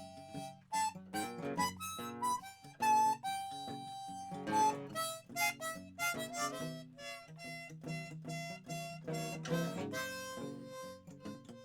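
Instrumental break in a live song: a harmonica playing a quick melody over strummed acoustic guitar.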